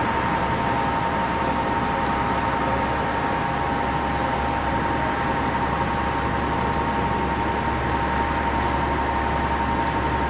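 Boeing 737-700 jet whine during pushback: a steady high tone over a constant rushing hiss, with no rise or fall in pitch.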